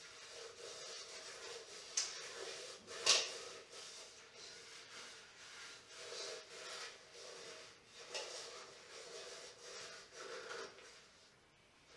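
Gloved hands scrubbing and rubbing inside the sheet-metal casing of an old Shmel primus stove. The rubbing comes in patches, with a couple of light knocks from the metal, the loudest about three seconds in.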